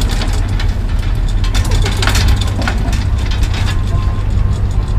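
Iron bar gate knocking and rattling in scattered clicks as a man climbs it, over a steady low engine-like rumble.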